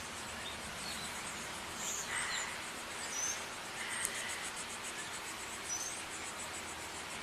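Insects trilling in a high, rapidly pulsing buzz, with a few short high chirps over a steady background hiss.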